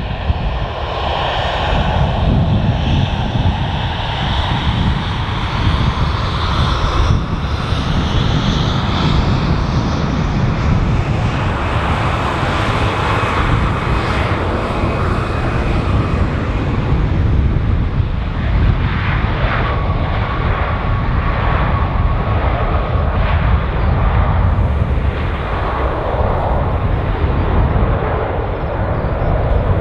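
Boeing 737-800's twin CFM56 jet engines running in a steady heavy rumble as the airliner touches down and rolls out along the runway. A thin whine sits above the rumble now and then.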